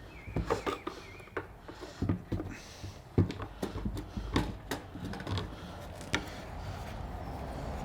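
Irregular light clicks and knocks of a fuel tank sender unit being handled and pushed against the tank while it is worked back into place. The sharpest knock comes about three seconds in, with another about six seconds in.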